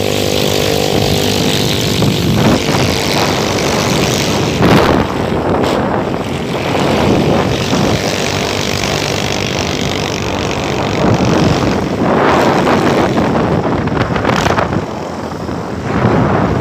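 Engine of a moving vehicle running steadily, with wind buffeting the microphone. The engine hum is clear for about the first two seconds, then is largely covered by a gusting rush of wind that surges a few times.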